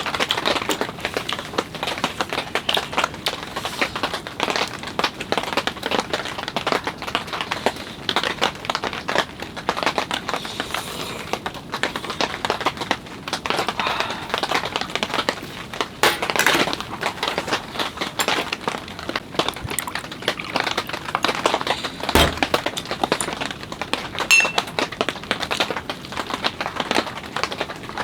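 Rain drops pattering densely and irregularly on tent fabric, heard from inside the shelter. One stronger knock stands out about twenty-two seconds in.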